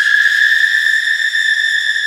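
A loud, shrill, high-pitched tone held steadily, with a faint waver, in a horror sound effect. It begins with a short upward glide just before this point and starts to fade near the end.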